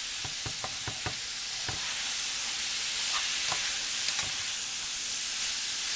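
Mushrooms, garlic, onion and bell pepper sizzling as they fry in a pan, with a utensil knocking against the pan now and then as they are stirred and spread.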